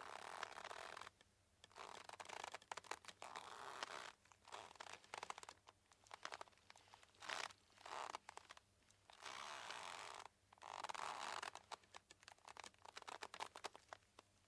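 A boat's rope creaking in a series of irregular, grating creaks, some lasting a second or more, with short pauses between them.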